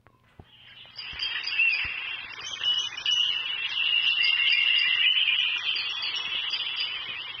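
Outdoor chorus of high chirping calls, short notes repeating a few times a second over a steadier high trill, fading in over the first second or two and easing off near the end.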